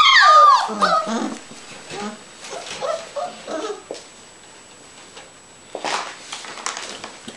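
33-day-old yellow Labrador Retriever puppies whining and yelping, with loud high cries that fall in pitch in the first second or so, then softer short whimpers. A few faint clicks and rustles come near the end.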